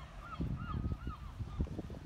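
A gull calling in a run of short, quickly repeated arched notes that stop about a second in, over low rumbling noise.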